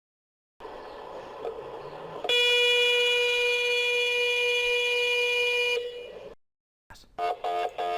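MRI scanner's gradient coils sounding a loud, steady single-pitched tone for about three and a half seconds, which then fades out. Near the end a regular rhythmic knocking of about three beats a second starts.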